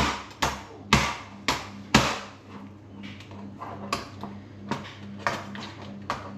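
Knife chopping through raw crab shell onto a plastic cutting board. There are about five hard chops roughly half a second apart, then lighter, quicker taps from about three seconds in.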